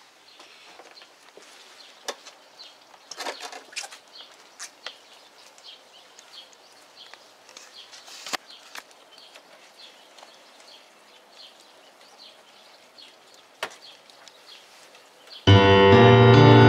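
Faint background noise with scattered clicks and knocks. About a second before the end, a Williams digital piano comes in loudly, playing sustained chords.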